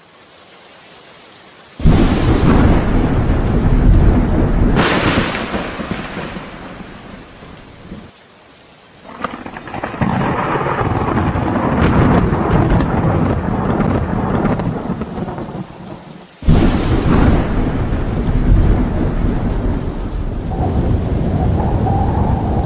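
Thunderstorm: loud thunderclaps about two seconds in, near five seconds and again about sixteen seconds in, each trailing off into a long low rumble, over steady rain.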